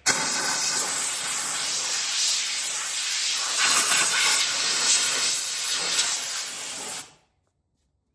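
Compressed-air blow gun blasting air in a steady, loud hiss that wavers slightly, cutting off suddenly about seven seconds in.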